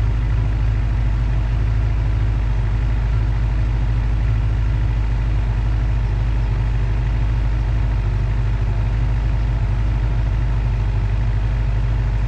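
Suzuki GSX-R750's inline-four engine idling steadily, settling in just after starting with a newly fitted Sprint P08 air filter.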